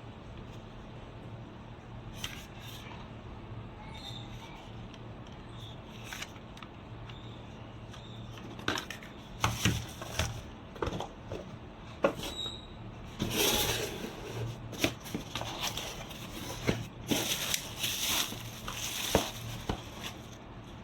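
Scattered sharp clicks and short rustling bursts over a steady low hum, sparse at first and busier from about halfway through.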